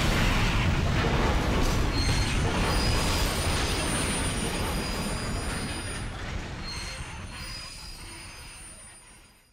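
Train sound effect: a heavy rumble with thin, high metallic squeals of wheels on rails, fading out slowly until it is gone near the end.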